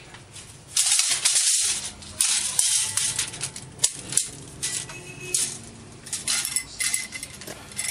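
Steel tape measure being pulled out and handled: a run of short, scraping metallic rattles in several bursts, with a sharp click about four seconds in.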